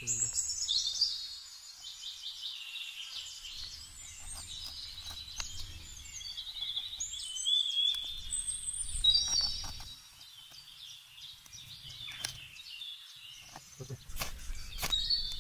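Small birds chirping and trilling continuously, with a few short scraping ticks from a knife shaving curls off a wooden stick.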